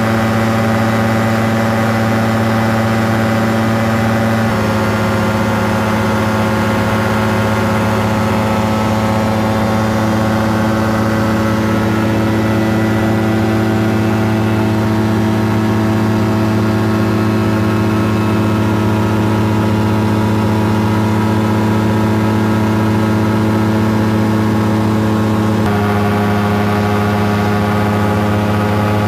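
Caprice 21 ultralight aircraft's engine and propeller droning steadily in cruise, heard from inside the cockpit with wind noise. The engine note drops slightly about four seconds in and rises again near the end.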